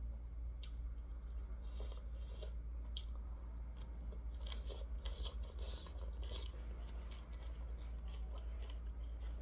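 A person chewing food close to the microphone: irregular soft crunches and mouth clicks over a steady low hum.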